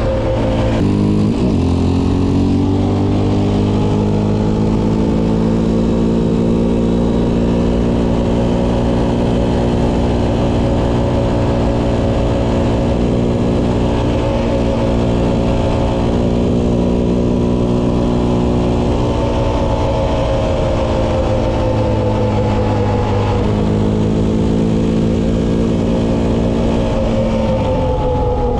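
Yamaha Raptor 700 ATV's single-cylinder four-stroke engine running at road speed. The engine note drops sharply about a second in, climbs back and holds steady, then dips and rises again near the end.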